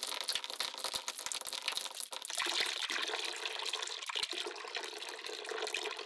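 A thin stream of water pouring into a shallow tank of water, splashing steadily; the splash gets a little fuller and lower about two seconds in.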